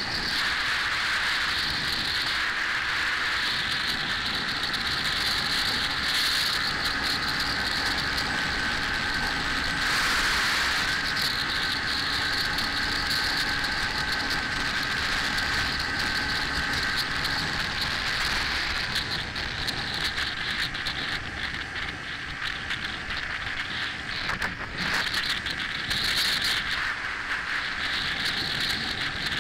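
Wind rushing over a camera on a moving motorcycle at road speed, with the motorcycle's engine running steadily underneath.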